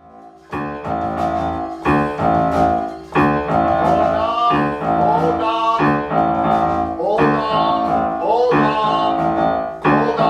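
Music with piano or keyboard chords struck about once a second, starting out of silence, with a gliding melodic line, likely a voice, over the chords from about four seconds in.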